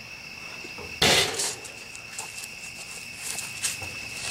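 Crickets chirping steadily throughout. About a second in comes a brief, loud scuffle of bodies and clothing in a staged fight, followed by lighter rustling and shuffling steps.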